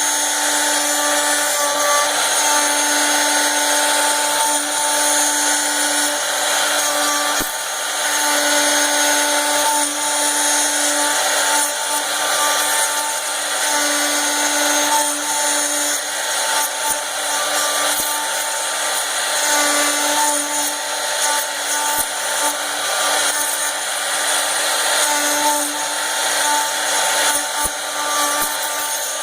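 CNC router spindle running and machining with a steady high whine and hiss. A lower hum cuts in and out every second or two as the machine moves.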